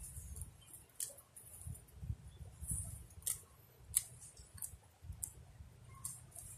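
Feathers being plucked by hand from a dead woodpecker: a string of short, sharp ticks and soft high rustles, one every second or so, over a low rumble.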